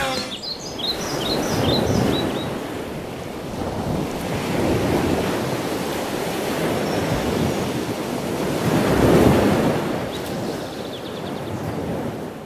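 Ocean waves washing in, swelling and falling in several surges, with a few short high chirps in the first two seconds.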